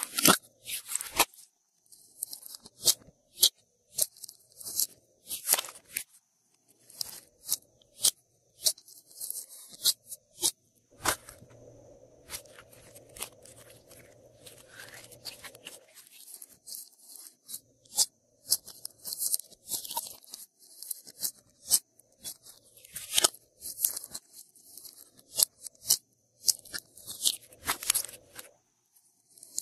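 Glossy slime squeezed, stretched and folded by hand, making irregular sharp clicks and pops, with a steadier squelching stretch a little before the middle.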